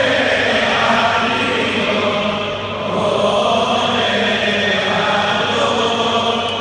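A vast crowd of worshippers chanting Selichos penitential prayers together: a dense, continuous mass of voices, with a slight dip in loudness about halfway through.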